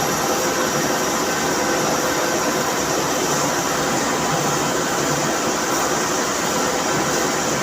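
CNC machine running: a steady mechanical hum and whir with faint steady tones in it. A faint high whine stops about halfway through.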